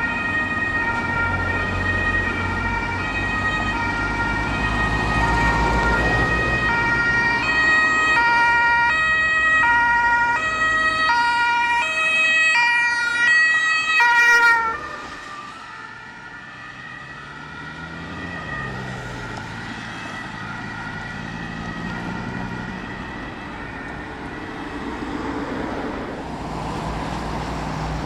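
Emergency vehicle's German two-tone siren (Martinshorn) sounding loud over engine and road noise, switching between a high and a low note about once a second. It cuts off suddenly about 14 seconds in, leaving quieter vehicle and traffic noise.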